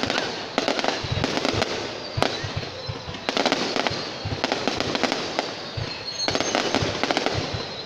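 Fireworks display: aerial shells bursting in quick succession, a dense barrage of bangs and crackling.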